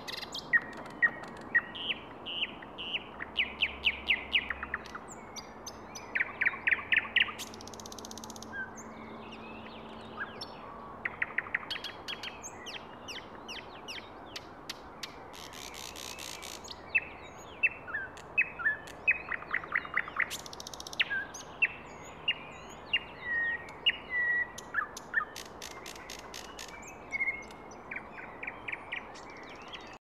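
Thrush nightingale singing: phrases of rapid, repeated hard notes and clicks alternating with clear whistles and a few short rattling buzzes, separated by brief pauses.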